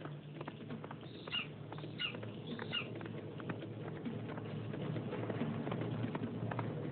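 Three short, high cries, each bending down at the end and about two-thirds of a second apart, from a hunting eagle. They sound over a steady patter of horse hooves in snow, which grows louder in the second half.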